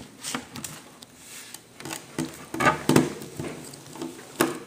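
Knife tip used as a screwdriver, scraping and clicking in the head of a stuck screw on a netbook's metal screen hinge, in a string of short, irregular clicks.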